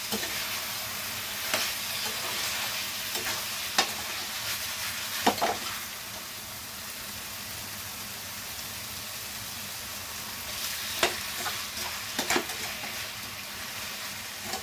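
Thick chicken and potato curry sizzling in oil in a pan at the dry-fried (kosha) stage, being stirred, with a few sharp clicks against the pan.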